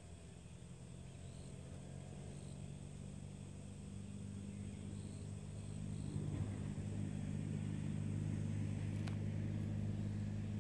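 Low, steady engine hum that grows louder over the first several seconds, then holds.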